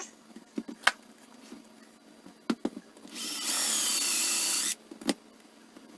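Electric drill running for about a second and a half, with a high whine, drilling out a stripped head bolt hole for a thread insert, with a few sharp knocks of the tool being handled before and after.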